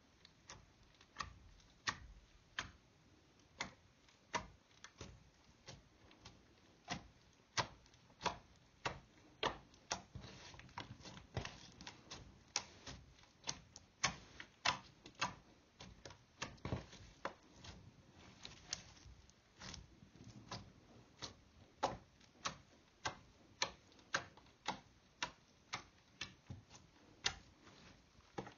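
Green glitter slime with water beads being kneaded and pressed by hand, making sharp popping clicks at an irregular pace of one or two a second.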